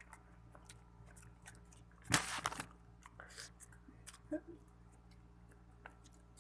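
Someone chewing French fries, with small wet mouth clicks and one louder noisy burst about two seconds in.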